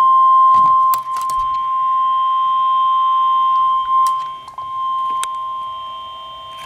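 NOAA Weather Radio warning alarm tone: a loud, steady single tone of about 1050 Hz received over a weather radio, with crackles of static cutting across it. The tone signals that a warning broadcast follows.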